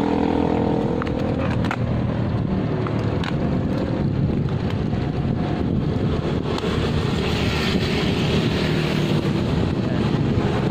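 Wind buffeting the microphone while riding a bicycle, over steady road and traffic noise.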